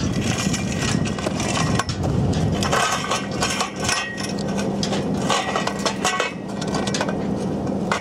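Irregular crunching and clicking, as of footsteps on loose gravel among scattered steel conveyor rollers, over a low rumble.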